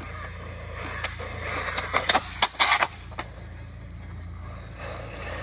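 Arrma Granite Grom RC truck with a Spektrum brushless motor running over the ground, its drive and tyres rising in sound from about a second in, with a quick cluster of sharp knocks and clatters in the middle, the loudest part.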